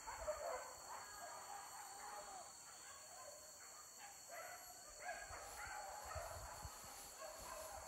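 Hunting dogs barking and baying faintly in thick forest, short calls repeating on and off.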